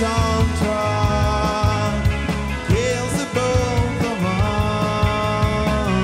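A rock band playing a new wave–style song: a male lead vocal over electric guitar, bass, held keyboard-like tones and drums keeping a steady beat.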